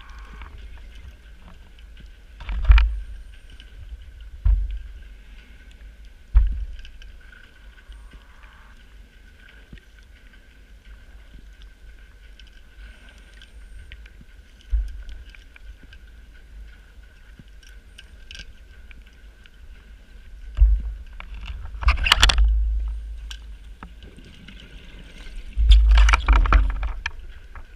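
Underwater recording of a scuba diver's exhaled air: short bursts of bubbles every few seconds, with longer, louder ones near the end, over a low rumble and a faint steady high whine.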